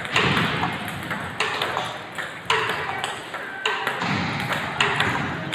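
Table tennis balls clicking off paddles and bouncing on the table during a multiball topspin drill, with a ball fed and driven back about once a second.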